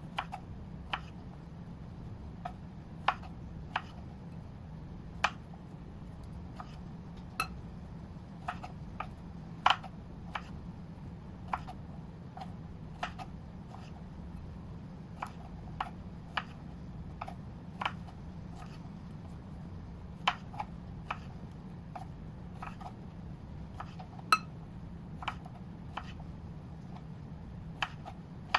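Dishes and utensils being handled while breakfast is made: scattered, irregular clinks and knocks, about one or two a second, over a steady low hum.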